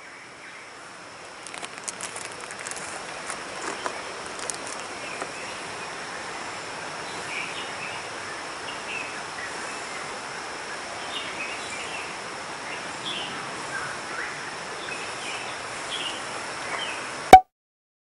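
Forest stream ambience: a steady rush of flowing water with scattered short bird chirps and a thin, steady high insect tone, plus a few faint ticks from fishing line being handled in the first seconds. Near the end comes one sharp, loud click, and then the sound cuts off.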